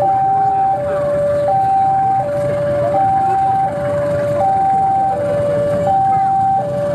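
Two-tone electronic railway warning alarm, switching between a higher and a lower note about every three-quarters of a second, while a diesel locomotive rolls in slowly with its engine rumbling low underneath.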